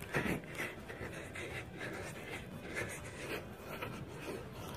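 Soft scuffing and light footsteps of sneakers on artificial gym turf during an agility ladder footwork drill, with scratchy rubbing noise.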